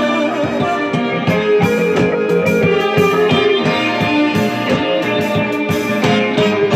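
Instrumental break in a band recording, with no singing: guitar to the fore over a steady beat.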